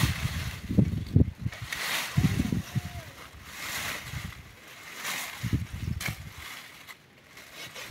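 Water sloshing and splashing in repeated, uneven strokes about once a second.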